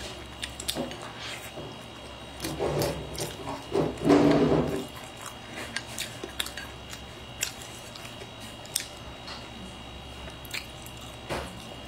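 Wooden chopsticks clicking and scraping against a bowl while picking up rice, with chewing between, and a brief vocal hum about four seconds in.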